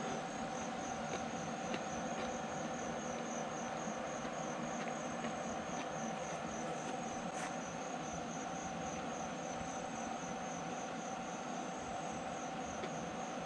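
Insects chirping in a steady, rapidly pulsing high trill, over a steady even tone.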